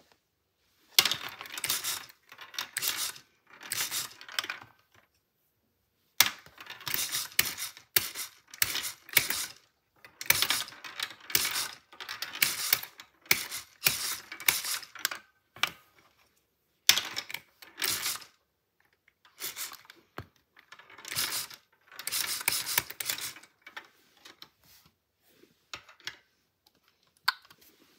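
Homemade LEGO pinball machine in play: plastic flippers clacking and the ball rattling across the LEGO brick playfield. The clatter comes in bursts of one to a few seconds with short pauses between.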